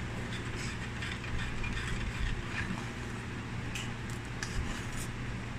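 Metal spoon scraping and clinking against a stainless-steel saucepan while stirring, in scattered short scrapes and clicks, over a steady low hum.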